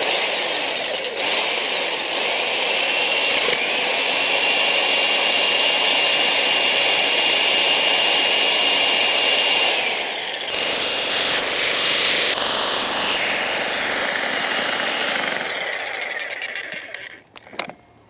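TR Industrial 120-volt corded electric jackhammer with a ground rod driver bit running, driving a rebar pin into the ground. It starts abruptly, dips briefly about ten seconds in, and dies away near the end.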